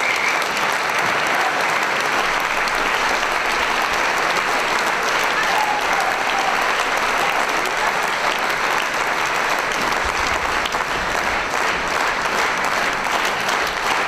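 A large audience applauding, dense and steady.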